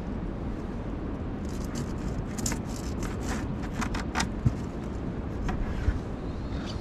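Steady low wind rumble on the microphone, with a quick run of light clicks and scrapes for a couple of seconds in the middle and a couple of soft knocks near the end.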